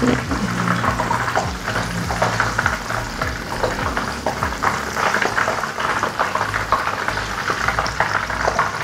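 Banana prawns sizzling and crackling as they fry in a pan, turned now and then with tongs. A steady low hum runs underneath.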